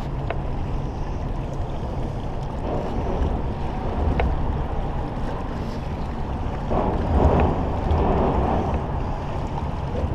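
Wind buffeting the microphone outdoors: a steady low rumble that swells to a stronger gust about seven seconds in, with a few faint clicks.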